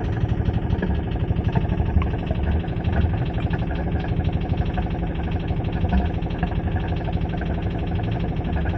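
Sailboat's inboard engine idling steadily with a fast, even beat, just after starting on cranking following a no-start repair.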